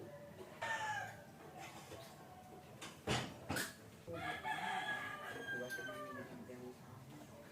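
Rooster crowing, a long drawn-out call about four seconds in, after a short falling call near the start. Two sharp knocks come about three seconds in.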